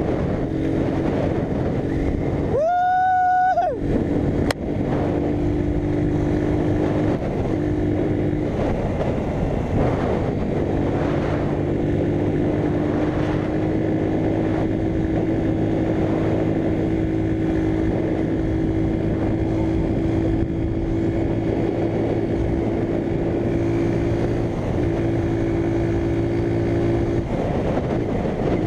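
Small motorcycle engine running at a steady cruising speed, with wind rushing past. About three seconds in there is a single horn beep lasting about a second.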